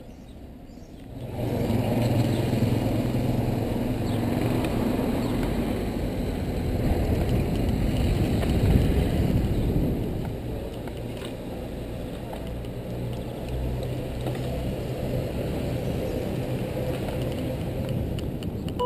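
Traffic and wind noise on a moving camera's microphone, with a motor vehicle's engine humming steadily underneath; it comes in suddenly about a second in and eases off somewhat about halfway through.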